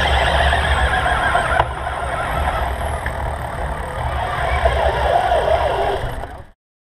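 Wind rushing over a bike-mounted camera's microphone with road and tyre noise as a road bike rolls in a group, and a wavering squeal about five seconds in as the riders brake to a stop. The sound cuts off suddenly near the end.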